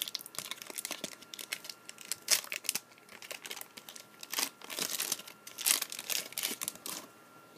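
A trading card pack wrapper crinkling and tearing as the pack is opened and the cards handled, a run of irregular crackles and rustles that thins out near the end.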